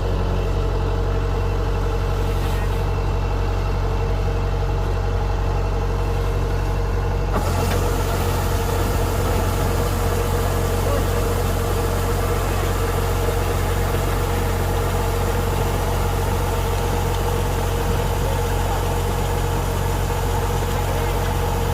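Kubota DC-105X combine harvester's diesel engine running steadily, a low drone with a steady whine over it. About seven seconds in, a broad hiss of machinery joins in and stays.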